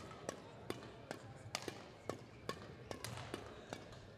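Badminton rackets striking shuttlecocks on neighbouring courts: a run of sharp, irregular clicks, about three a second, over a faint hall background.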